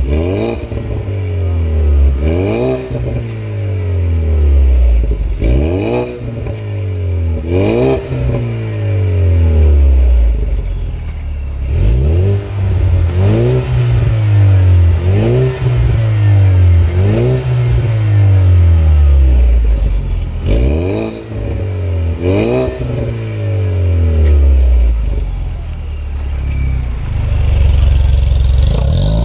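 Ford Mustang 2.3 EcoBoost turbocharged four-cylinder with an Armytrix full exhaust system, free-revved again and again while parked: short blips that climb and fall back, about one every second or two. For the first half the exhaust valves are open, and for the second half they are closed.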